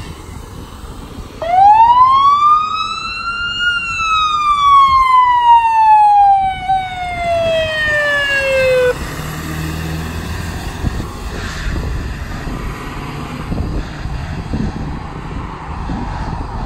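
Brush fire truck's siren giving a single wail: it starts suddenly, rises for about two seconds, then falls slowly and cuts off about nine seconds in. After that the truck's engine is heard as it drives off.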